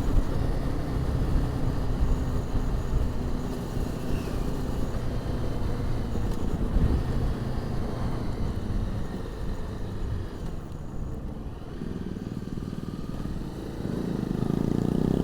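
Motorcycle engine of a 250cc bike heard from inside the rider's crash helmet while riding, with wind and road rumble. It eases off and quietens about two-thirds of the way through, then revs up again near the end.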